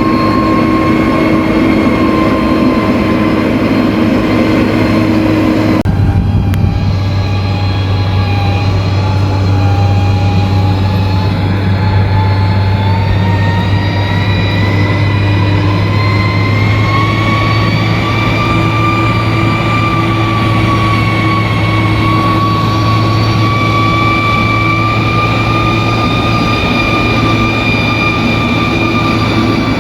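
Bulldozer's diesel engine running steadily under load, a deep hum with a whine over it. The whine drops abruptly about six seconds in, then climbs slowly over the next few seconds and holds.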